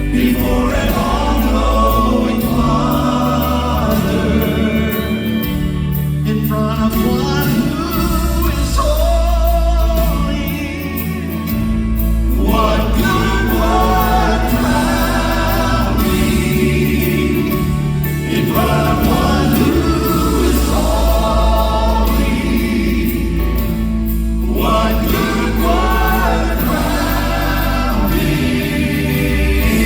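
Gospel group singing in harmony over a steady bass accompaniment, in phrases a few seconds long with short breaks between them.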